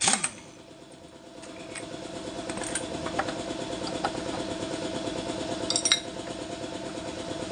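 A short burst from an impact wrench at the start as it loosens the CVT nut, over an engine idling steadily; a few sharp metal clinks of tools follow, the loudest about six seconds in.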